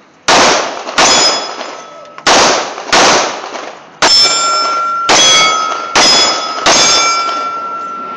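Eight .45 ACP shots from a Colt 1991A1 pistol fired over about seven seconds, with steel targets ringing on the hits. The ringing carries on after the last shot.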